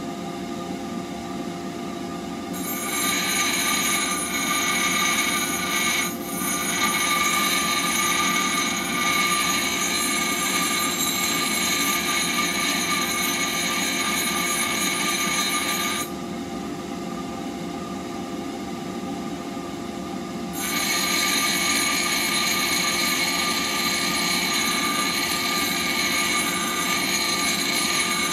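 Bench grinder running steadily while a steel blade is pressed against the spinning wheel in two long grinding passes, throwing sparks; each pass adds a loud, bright grinding hiss over the motor's steady hum. The first pass starts a couple of seconds in and stops about halfway, and the second starts a few seconds later and runs nearly to the end.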